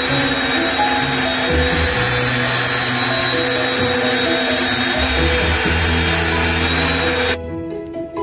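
Countertop blender with a glass jug running steadily, blending fruit into a smoothie, then switching off suddenly about seven seconds in. Background music plays under it and carries on after the blender stops.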